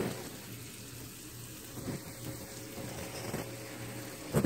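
Steady low hum and faint hiss of kitchen background noise, with a few soft knocks from handling and a sharper knock near the end.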